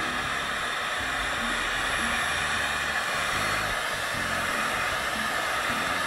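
Electric heat gun blowing hot air with a steady rushing hiss, shrinking heat-shrink tubing over a soldered power-cord splice.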